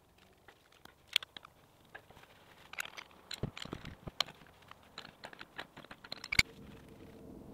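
Two metal pipe wrenches clicking and clanking on a threaded water-line adapter as their jaws are set and the fitting is tightened. Irregular sharp clicks throughout, the sharpest knocks about a second in and again near the end.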